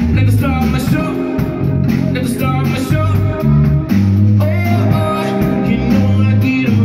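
Live rock band playing: a singer over electric guitar, with sustained low bass notes and regular cymbal-like hits.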